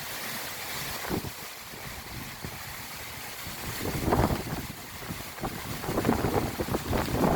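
Strong gusty wind buffeting the microphone, with low rumbling surges about four seconds in and again near the end.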